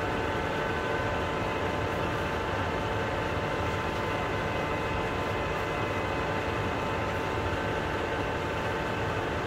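Metal lathe running at a very slow spindle speed, about 7 revs per minute, while spring wire winds onto a turning tailshaft. It makes a steady mechanical hum with a few constant whining tones from the motor and gearing.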